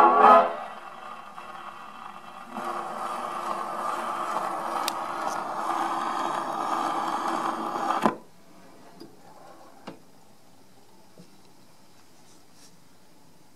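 The last note of a 78 rpm record fades on an HMV Model 101 wind-up portable gramophone. Then its needle runs on in the record's end groove with a steady scratchy hiss for about five seconds, which cuts off suddenly as the soundbox is lifted. A few faint clicks follow.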